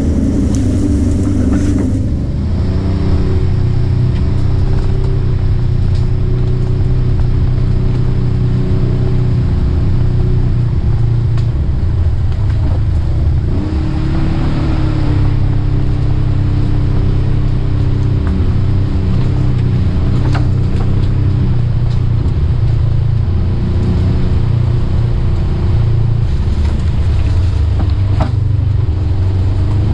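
Polaris RZR side-by-side engine running steadily as it drives along a dirt trail. Its pitch steps up slightly about two seconds in and rises briefly about halfway through.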